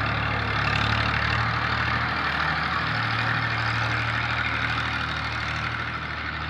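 Tractor diesel engine running steadily as it pulls a tine cultivator across the field, growing fainter near the end as it moves away.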